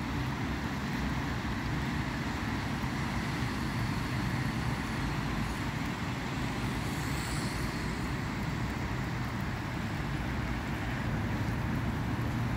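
Steady road traffic at a junction: vehicle engines running and tyres on a wet road, with a brief high hiss about seven seconds in.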